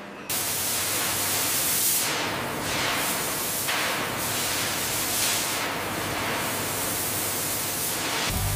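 Cutting torch hissing as it cuts through steel plate: a loud, steady hiss that starts abruptly just after the beginning, with several surges that fall in pitch. Music comes in right at the end.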